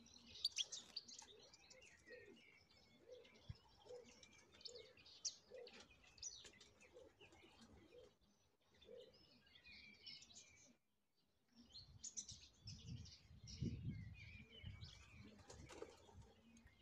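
European goldfinch calling faintly in short twittering chirps. A low rumble rises over it in the second half.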